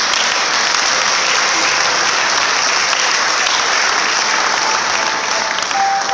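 Audience clapping, loud and steady: a dense applause that holds without a break.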